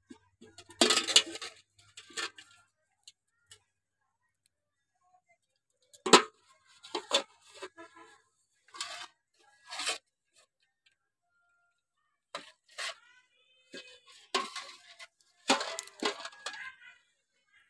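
A caught fish flapping and being handled in a metal basin, in separate bursts of rustling and clattering against the metal, loudest about six seconds in.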